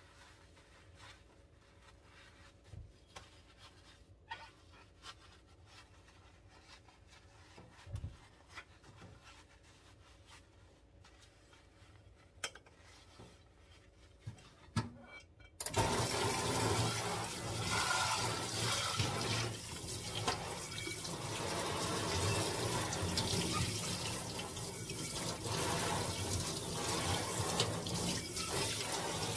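Sponge scrubbing a stainless steel pot in a steel sink: faint rubbing with a few sharp knocks of metal on metal. About halfway through, the faucet is turned on and water sprays steadily from the spray head into the sink as the pot is rinsed.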